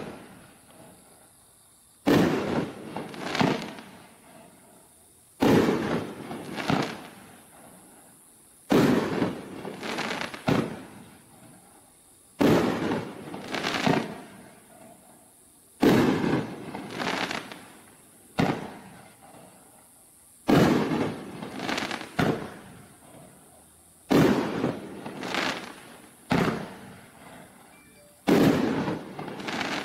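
Raccoon Fireworks Neon Blaster, a 9-shot rack of 3-inch canister shells, firing one shell roughly every three and a half seconds. Each shot is a pair of bangs: the launch, and about a second and a half later the shell bursting in the air.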